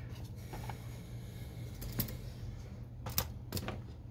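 A few light plastic clicks and taps as a small plastic piece is handled and fitted onto an Epson inkjet printer's printhead carriage, over a steady low hum.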